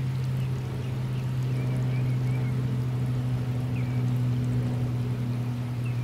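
Steady low hum of a water pump motor with water running. A few faint, short, high chirps sound over it.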